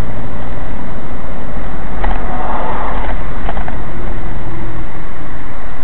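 Steady, loud engine and road rumble from inside a moving vehicle, picked up by a dashcam. A brief louder rush comes about two seconds in, with a few light clicks.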